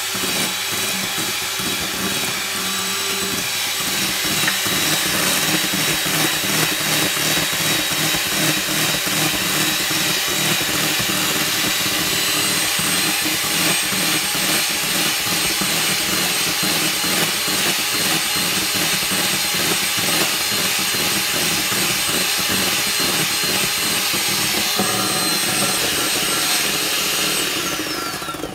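Electric hand mixer running steadily at speed, its beaters whipping egg whites in a stainless steel bowl into stiff-peaked meringue, with a steady high motor whine; the motor winds down and stops right at the end.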